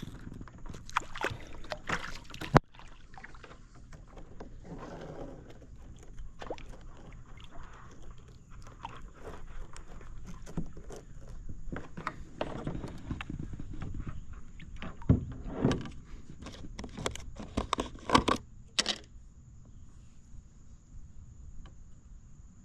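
Irregular knocks, clatters and rustling from gear being handled in a kayak, with some water sloshing. They stop about 19 seconds in, leaving a steady high insect buzz.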